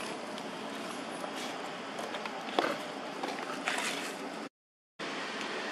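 Steady outdoor background noise with a few faint knocks, broken by a sudden half-second dropout to total silence about four and a half seconds in.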